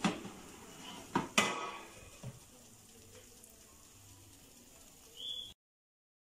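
IMUSA Easy Fry air fryer basket drawer pulled open with a clack, then two sharp knocks about a second in as the basket is handled. A faint sizzle follows from the hot chicken drumsticks in the basket. The sound cuts off to silence near the end.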